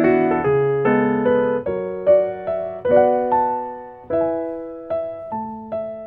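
Background music of gentle solo piano: single notes and chords are struck about once or twice a second, and each rings and fades away.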